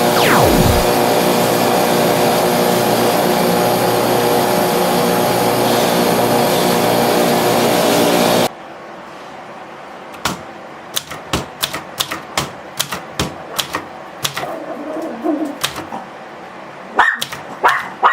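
Electric grinder running steadily with the knife being ground against it, cutting off suddenly about eight and a half seconds in. Scattered clicks and taps follow, and a dog barks a few times near the end.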